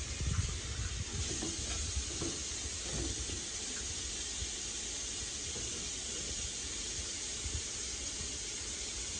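Tap water running from a faucet into a stainless steel sink, a steady hiss, with a few soft knocks in the first few seconds.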